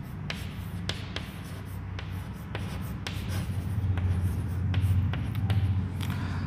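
Chalk writing on a chalkboard: a quick run of short taps and scratches as a word is written, over a low steady hum.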